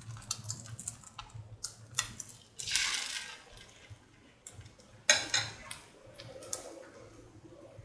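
Metal ladle scraping and clicking on a pan as it spreads semolina pancake batter in circles, followed about five seconds in by a sharp clink.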